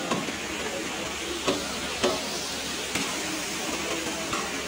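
Steady hiss of restaurant background noise, with a few sharp clicks, the clearest about a second and a half and two seconds in.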